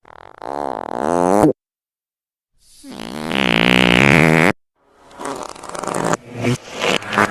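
Three fart sound effects separated by dead silence: a short one whose pitch dips and then rises, a longer one with a wavering pitch, then a run of short sputtering farts near the end.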